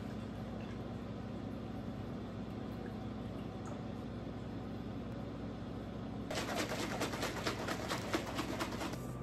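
Plastic protein shaker bottle of milk and Milo shaken hard by hand for about three seconds, a fast rattling slosh that starts about six seconds in. Under it runs a steady low hum.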